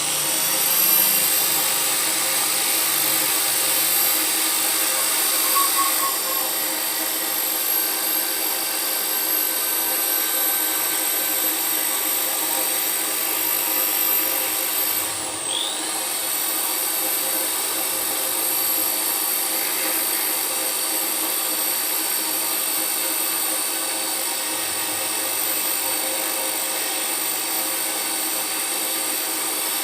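High-pitched electric motor of a cleaning machine running steadily. About halfway through it briefly slows in pitch and then picks up speed again.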